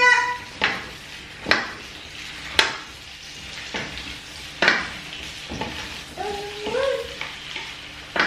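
Sliced vegetables frying in olive oil in a stainless steel frying pan, sizzling steadily as they are stirred with a wooden spatula, which knocks against the pan every second or so.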